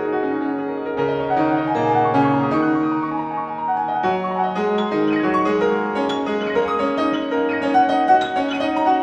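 Solo piano playing held chords over low bass notes, turning busier with quicker, higher notes from about halfway.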